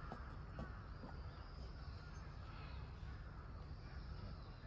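Steady low rumble of outdoor ambience with a few faint, short high-pitched animal calls.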